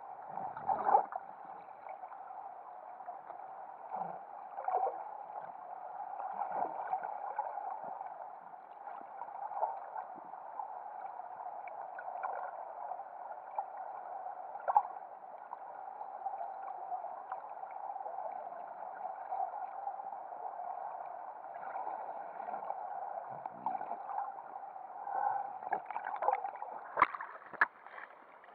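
Muffled underwater sound picked up by a submerged camera while snorkeling: a steady dull hum with scattered knocks and gurgles. Near the end come several sharper splashes as the camera breaks the surface.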